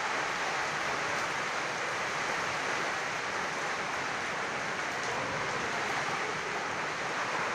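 A steady, even rushing hiss with no distinct sounds standing out of it.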